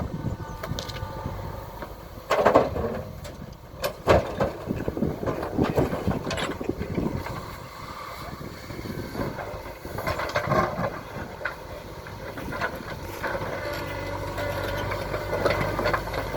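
JCB 3DX backhoe loader's diesel engine running while it loads large stones, with loud knocks and clatter of stone against steel, the sharpest a little over two seconds in and about four seconds in, and more about ten seconds in.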